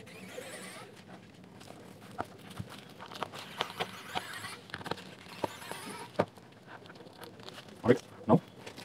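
Small screws being turned out of a JBL Soundfly Air's plastic housing with a precision screwdriver: scattered light clicks and faint scraping. Near the end come two louder knocks about half a second apart as the casing is handled.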